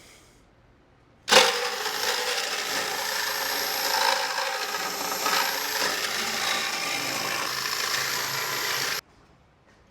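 A power tool running continuously while cutting wood. It starts suddenly about a second in and stops abruptly near the end.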